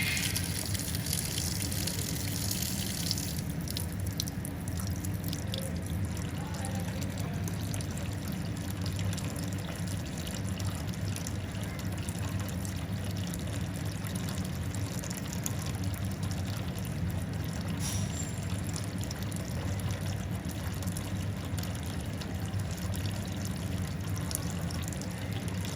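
Tap water running steadily, with a brighter hiss for the first few seconds.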